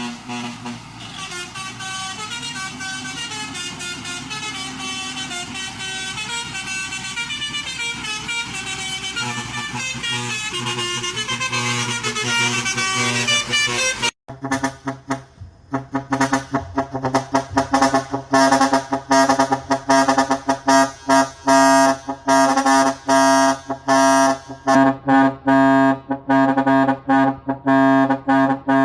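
Long trumpet-style air horns sounding a tune in sustained, changing notes. About halfway through the sound cuts off abruptly, then the horns fire rapid, short rhythmic blasts.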